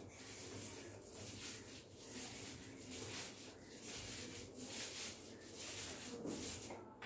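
Paint roller spreading thick textured paint (Asian Paints Royal Play) across a wall: a rhythmic swish with each back-and-forth stroke, about two strokes a second.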